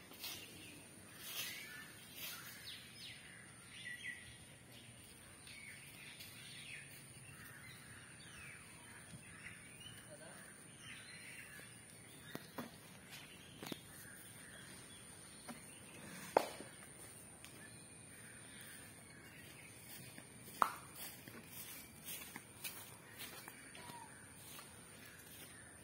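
Quiet outdoor ambience with birds calling, including crow-like caws, and scattered sharp clicks and knocks, the loudest about sixteen seconds in and again about twenty seconds in.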